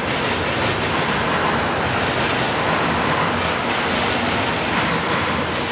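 Double-stack container freight train rolling past: steady noise of steel wheels on the rails and rattling cars, with faint clicks of the wheels over rail joints.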